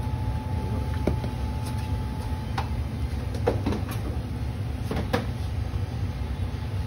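Battered food frying in a commercial deep fryer: hot oil bubbling and sizzling over a steady low rumble, with a few sharp pops or clinks scattered through it.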